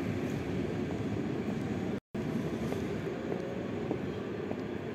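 ЭП2Д electric multiple unit pulling away from the platform: a steady low rumble of wheels and running gear that eases slightly as the train draws off. The audio cuts out completely for a split second about two seconds in.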